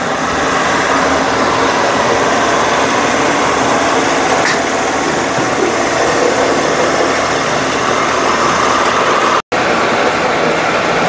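Electric spice-grinding mill running steadily while it grinds dried red chillies into powder. The sound cuts out for an instant about nine and a half seconds in, then carries on.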